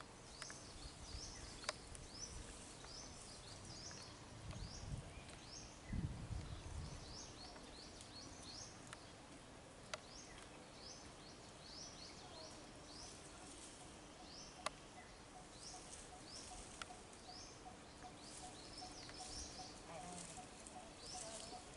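Forest ambience with small birds repeating short high chirps several times a second. There are a few sharp clicks and a brief low rumble about five seconds in.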